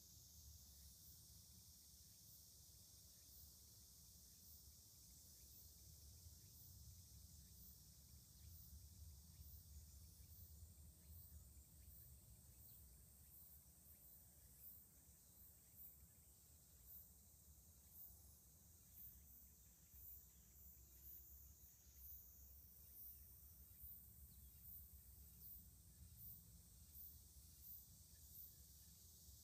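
Near silence outdoors: faint insects chirping, a thin high buzz with short high chirps repeating every second or so, more often in the second half.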